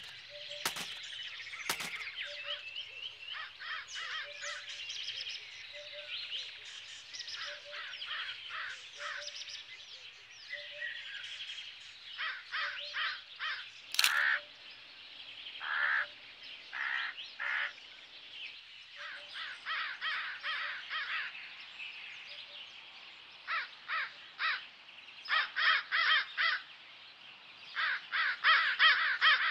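Crows cawing repeatedly, with other birds chirping, the calls coming in quick clusters near the end. About halfway through, a single sharp click of a compact camera's shutter.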